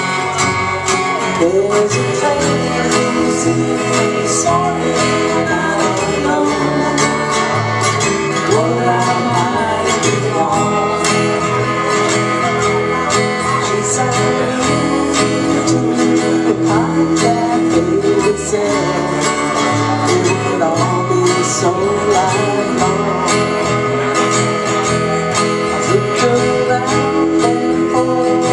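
Live country-rock duo: an acoustic guitar strummed over an electric guitar line, with a woman singing at times.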